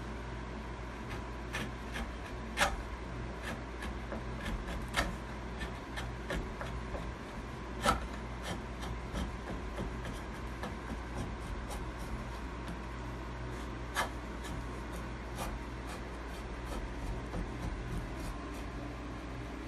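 A hand-held carving blade cutting into the wooden heel of a guitar neck during rough shaping: irregular scraping and paring strokes, with several sharp snaps as chips break off.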